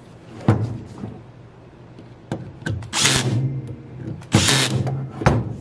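Small electric screwdriver running in two short bursts, driving in the two screws of a valve-body cover plate, with a sharp clack about half a second in and another near the end.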